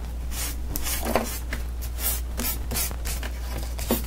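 Small sanding block scraped over the edges of a die-cut piece of Core'dinations cardstock, distressing it so its white core shows through. Quick, irregular rasping strokes, about three a second.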